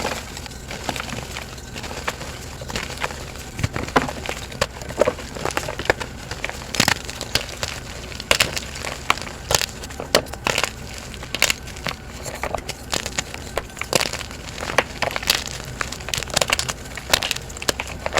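Plain gym chalk being crushed and crumbled by hand: a run of irregular crunches and sharp crackles as the pressed magnesium carbonate breaks apart.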